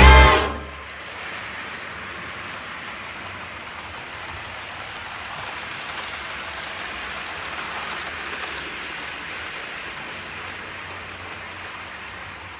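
The last note of an intro jingle dies away in the first second, then OO gauge model trains run on the layout track, giving a steady, even rushing sound with no clear pitch.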